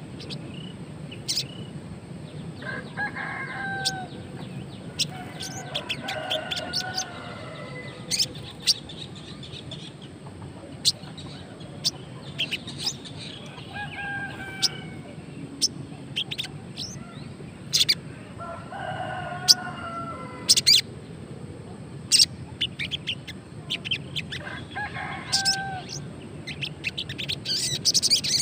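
Sogon (brown-throated sunbird) in a cage giving short, sharp, high chip calls at irregular intervals. It is a wild-caught bird only recently kept and not yet in full song. Roosters crow several times in the background, each crow about a second long.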